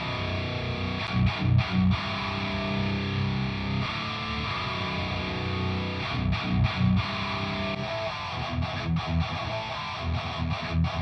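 Heavier7Strings virtual seven-string electric guitar playing a preset metal riff pattern, heavily distorted, with stop-start low-string chugs. The tone is the raw sampled instrument with no added effects or mixing.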